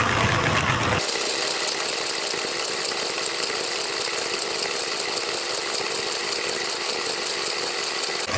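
Vintage Kenwood Chef stand mixer running steadily, its motor driving a sieve attachment that pushes cooked Japanese knotweed stems through the sieve. About a second in the sound shifts, its low rumble dropping away.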